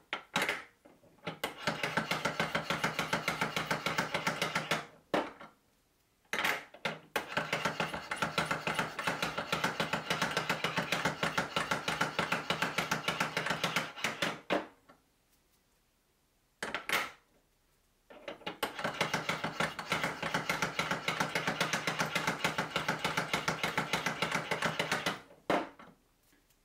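Hand-operated bassoon reed profiler shaving cane: three long passes of rapid, even scraping strokes, separated by short pauses and a few light knocks. The blade is taking the bark off and profiling the reed's blades.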